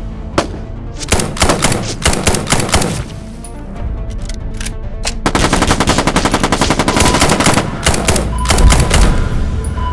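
Automatic gunfire sound effects laid over toy blaster action: a single shot, then a run of short bursts, then after a pause a long rapid burst of automatic fire from about five seconds in, with a few more shots near the end. Background music runs underneath.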